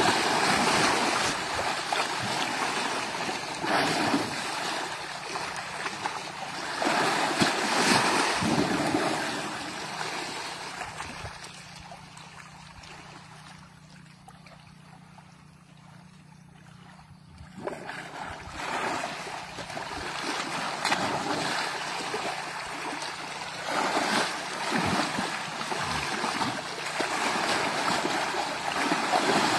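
Muddy water sloshing and splashing around an Asian elephant rolling in a shallow pool, mixed with wind on the microphone. The rushing comes in uneven swells, fades for a few seconds around the middle, then comes back suddenly.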